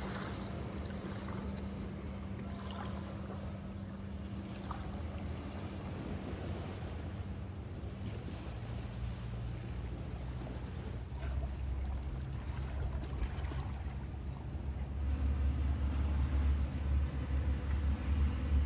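Longtail boat engine running with a low, steady drone that grows louder about fifteen seconds in.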